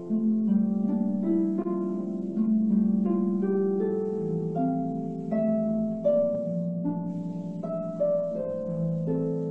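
Harp being played: plucked notes ringing on and overlapping, a melody above lower notes, heard through a video call's audio.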